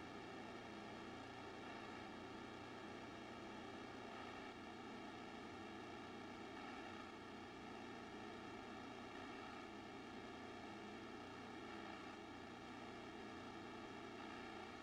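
Quiet, steady room tone: an even hiss with no distinct events. A faint steady tone stops about four seconds in.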